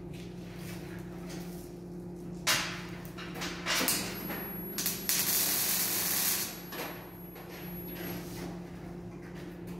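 MIG welding arc hissing and crackling, first in a few short bursts from about two and a half seconds in, then in one longer run of about a second and a half. A steady low electrical hum from the workshop's welding equipment runs underneath.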